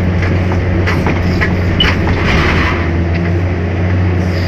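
Excavator engine running steadily under load, heard from the operator's seat, with scattered knocks and scraping of rock as the bucket digs; a harsher scrape comes about two seconds in.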